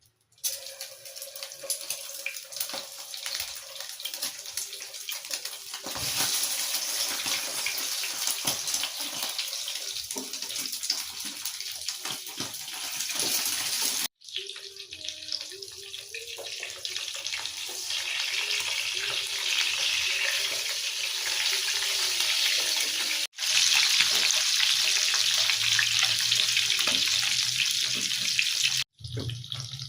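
Tap water running and splashing into a sink, a steady rush that breaks off abruptly three times.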